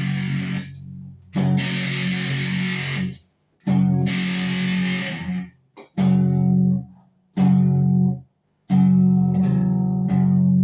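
Squier Sonic Stratocaster electric guitar played through an overdrive pedal and a Fender amp: loud chords that are cut off dead several times, leaving short silent breaks between them.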